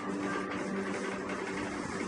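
Background music continuing under a pause in the narration: soft held notes over a steady hiss.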